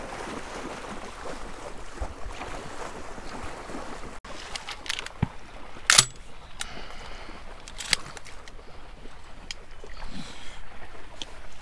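Water sloshing and splashing as something wades through a shallow flooded marsh, with a few sharp knocks, the loudest about six seconds in.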